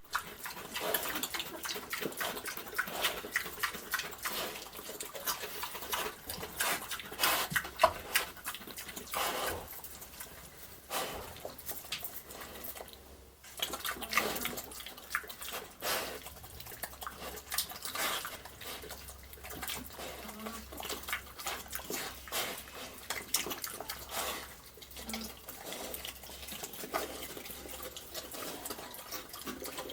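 A pig eating wet slop: a continuous run of irregular wet smacks, chomps and slurps.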